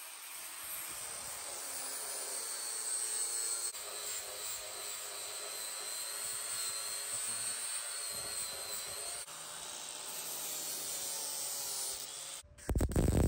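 Angle grinder running steadily with a high whine as it grinds down the welds on a steel tailgate repair strip, dressing them flush. About a second before the end, a much louder, deeper noise breaks in.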